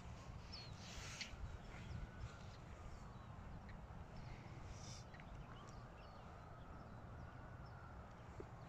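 Faint open-air ambience: a low steady rumble with scattered short, high bird chirps.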